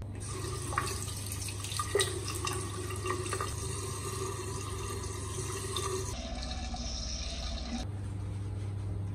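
Tap water running into a bathroom sink, with small splashes and drips as a wet hand washes a baby monkey's face under the stream.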